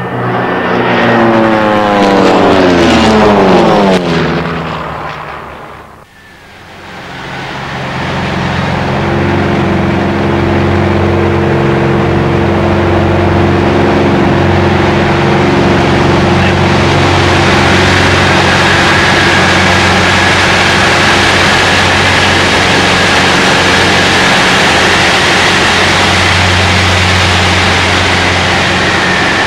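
A SIAI-Marchetti SF-260 propeller plane passes overhead, its engine note falling in pitch as it goes by and fading away about five seconds in. After a cut, the steady, loud drone of an SF-260's six-cylinder Lycoming piston engine and propeller follows, heard close up in flight, with a faint high whine in the second half.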